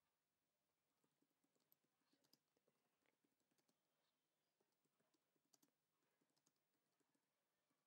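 Very faint typing on a computer keyboard: a quick, irregular run of keystrokes that begins about a second in.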